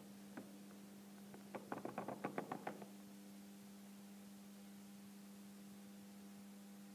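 Faint sounds of a model railway layout with the train standing: a quick run of light clicks and knocks about two seconds in, over a steady low electrical hum.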